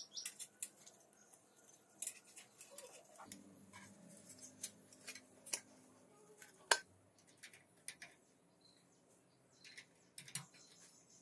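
Irregular sharp clicks and light taps, the loudest about two-thirds of the way in, with a faint steady low hum for a couple of seconds near the middle.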